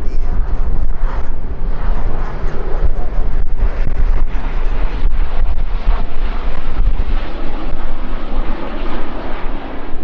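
C-130H Hercules flying past, the steady drone of its four Allison T56 turboprop engines and propellers, with a heavy low rumble under it.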